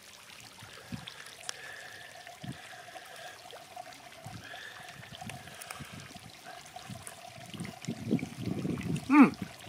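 Wind on the microphone with small clicks and crinkles as MRE ration pouches are handled. It gets busier in the last couple of seconds, ending with a short falling hum of a voice.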